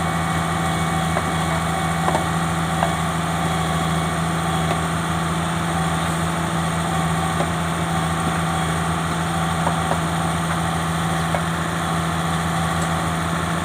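Excavator's diesel engine idling steadily, with a few faint clicks over it.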